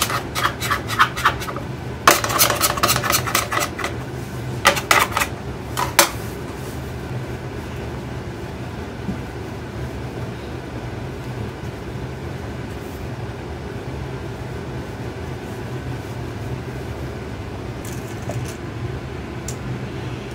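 Metal bench scraper tapping and clicking in quick runs against the edges of a slab of puff pastry dough on a marble board, squaring it up. After about six seconds the taps stop, leaving a steady low hum.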